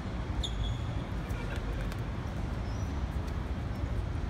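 Steady low rumble of city background noise, like distant traffic, around an outdoor football pitch. Over it come a few faint knocks and short high calls from players on the pitch.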